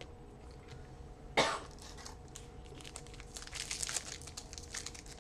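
A single short cough about a second and a half in, then a run of quick crinkling and rustling as trading cards and their pack wrapper are handled.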